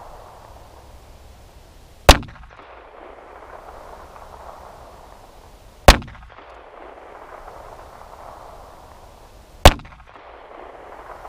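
Three pistol shots from a compact 380 ACP semi-automatic, fired slowly and evenly about four seconds apart in deliberate aimed fire at 15 yards, each a sharp crack with a short ring after it, heard from beside the target board.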